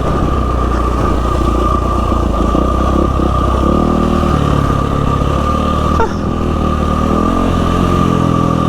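A 2012 Yamaha WR450F's single-cylinder four-stroke engine running while the bike is ridden down a dirt-trail descent, its pitch shifting a few times with the throttle. There is a short knock about six seconds in.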